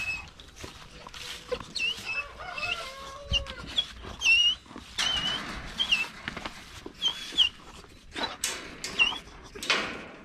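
Animal calls: a string of short, high, squeaky notes a second or so apart, with a drawn-out whine a couple of seconds in, over bursts of rustling.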